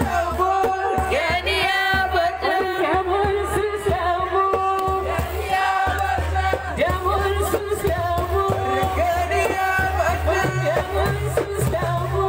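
Algerian wedding song: a solo voice sings a wavering melody over instrumental backing with a steady low bass.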